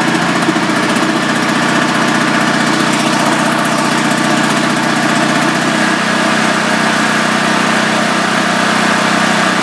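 Champion portable generator's 196cc single-cylinder four-stroke engine running after a cold start, as its choke is slowly eased from choke toward run. The note wavers for the first few seconds, then settles into a steady run.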